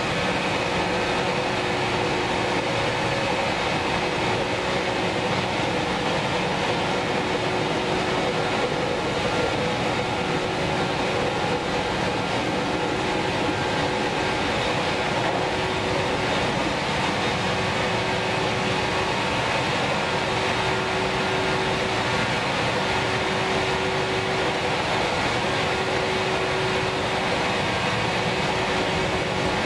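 Cabin of a JNR-era electric train running at steady speed: the whine of the traction motors, held at an even pitch, over steady wheel-and-rail running noise.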